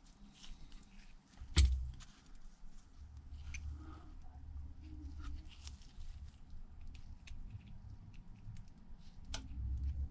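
Small clicks and taps of phone parts and small tools being handled on a repair bench, with one sharp, louder click about a second and a half in, over a low hum.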